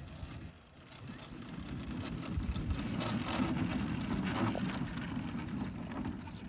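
Model aerobatic airplane's engine and propeller running as the plane taxis on grass, a rough, crackly drone that grows louder over the first few seconds and then holds.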